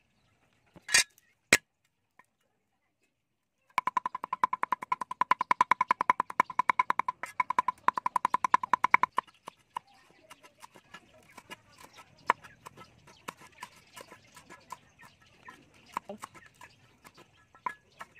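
Cleaver chopping garlic and red chillies on a wooden chopping board. Two sharp knocks come about a second in. After a short silence there is a fast, steady run of ringing chops, about eight a second, lasting some five seconds, and then lighter, irregular chops.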